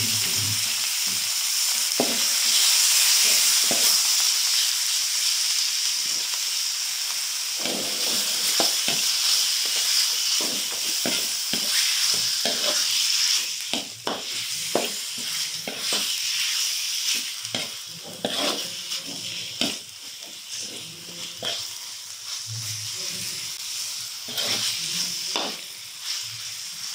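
Raw chicken pieces sizzling in hot oil and spice paste in a wok, with a ladle scraping and clicking against the pan as the meat is stirred, starting about a quarter of the way in. The sizzle is loudest at first and eases off about halfway through.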